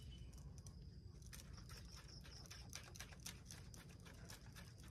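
Near silence: faint, irregular light ticks and clicks from a kite line being hauled in by hand, over a low, steady wind rumble.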